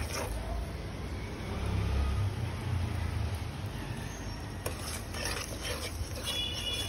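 Sugar syrup with cardamom pods bubbling in a nonstick pan over a low steady rumble, while a steel spoon stirs it. There are a few scrapes and clicks of the spoon against the pan about five seconds in.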